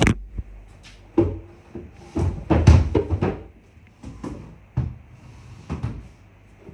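Wooden furniture being shifted across a floor: a series of irregular knocks and bumps, busiest about two to three seconds in.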